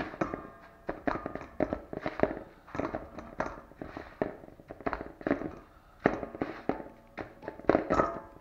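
Dry breadcrumbs crunching and rustling as a hand presses and pats a piece of raw chicken into them in a plastic bowl. The sound comes in irregular crackly bursts, about two a second.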